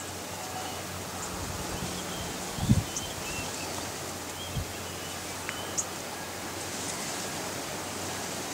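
Open-air hillside ambience: a steady rustling hiss of wind and leaves with a few brief, high bird chirps scattered through it. A short low thump just under three seconds in is the loudest moment.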